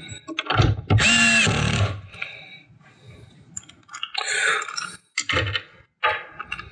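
Cordless drill driving a screw into the controller enclosure: about a second in, the motor runs briefly with a steady whine that drops as it stops. Shorter rattles and clicks of screws and the drill being handled follow, with a brief scraping burst a few seconds later.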